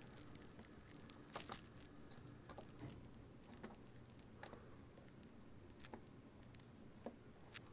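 Near silence with faint, irregular light clicks and taps: hands handling wires and small parts.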